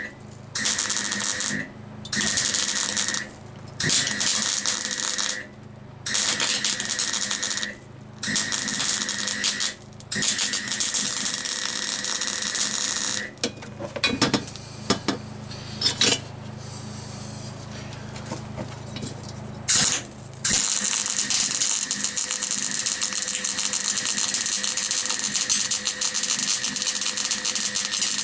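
MIG welder laying stitch welds on a steel gearbox-mount bracket: a crackling arc in repeated bursts of a second or two with short pauses, a quieter spell of a few seconds with some clicks, then one longer continuous weld run.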